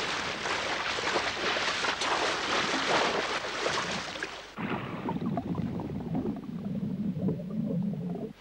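Heavy splashing and churning water, cutting off suddenly about four and a half seconds in to muffled underwater bubbling and gurgling as the armoured soldiers sink.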